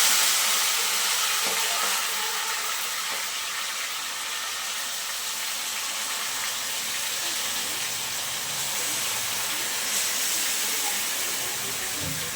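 Mutton and boiled eggs frying in mustard oil and masala, sizzling with a steady hiss that eases off a little in the first couple of seconds.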